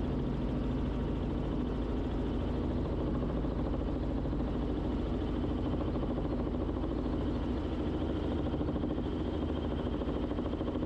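Steady drone of a Robinson R44 Clipper II helicopter in flight, its rotor and six-cylinder Lycoming piston engine running evenly.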